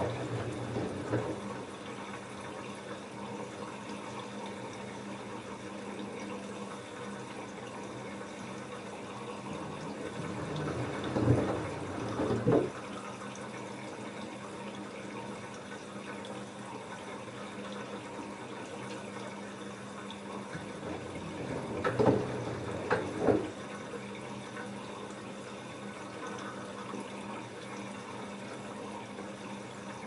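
LG F10A8HDS5 front-loading washing machine washing a load of denim: steady water sloshing in the turning drum over a faint motor hum. About eleven seconds in, and again about twenty-two seconds in, come two louder splashes in quick succession as the wet jeans drop.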